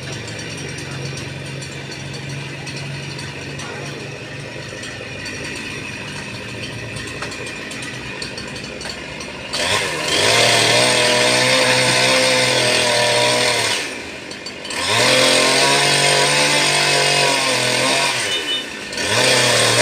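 Chainsaw idling steadily, then opened up to full throttle about halfway through in two long bursts of about four seconds each, dropping back briefly between them, with a third rev starting near the end.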